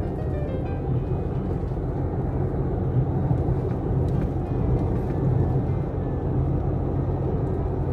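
Steady low rumble of a car driving at road speed, heard from inside the moving car: tyre and engine noise.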